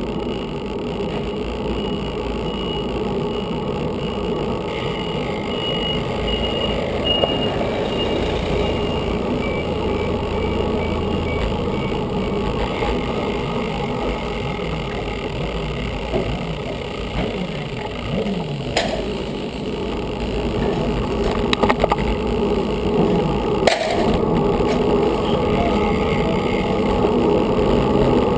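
Wind and road rumble on a GoPro mounted on a road bike's handlebar as the bike rolls over asphalt, with two sharp knocks, about two-thirds through and again near the end.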